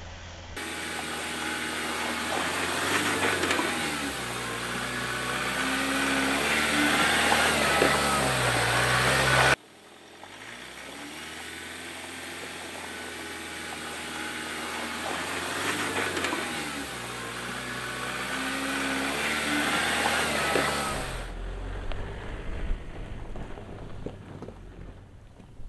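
A 2015 Ford Ranger's 2.2-litre turbo-diesel engine drives slowly past on a rough dirt track. The engine note rises as the truck approaches and falls away as it passes, twice, with a sudden cut about ten seconds in. Near the end the sound drops to a quieter low rumble.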